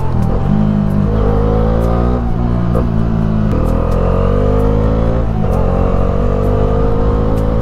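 Bajaj Dominar 400's 373 cc single-cylinder engine and exhaust accelerating through the gears. Its pitch rises in three runs and drops at the upshifts about two and a half and five and a half seconds in.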